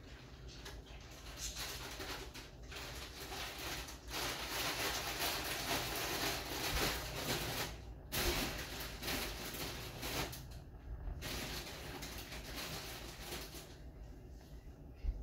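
Glass electric kettle heating water, a steady hiss and rumble that swells as the water nears the boil, with a couple of sudden brief dips in level.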